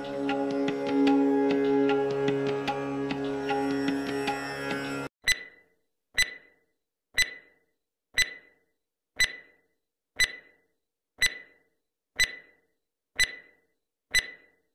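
Background music with plucked strings and hand drum stops suddenly about five seconds in. A countdown timer sound effect follows: ten short ringing ticks, one a second, counting down to zero.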